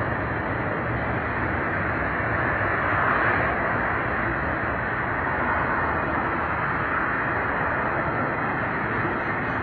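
Florida East Coast Railway intermodal freight cars rolling slowly past, with steady wheel-on-rail noise that swells slightly about three seconds in. The uploader blames the noise on poorly maintained wheel assemblies.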